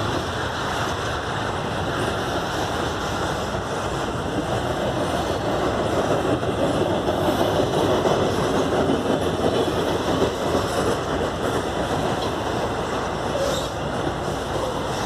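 Double-stack container freight cars rolling past, a steady rumble of wheels on rail that swells louder midway and then eases back.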